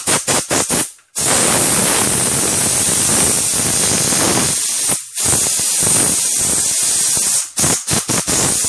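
Pressure cooker letting off steam through its vent in loud hissing spurts: a few short puffs, a long hiss, a brief pause, another long hiss, then more short puffs. The pressure is being released so that the lid can be opened after cooking.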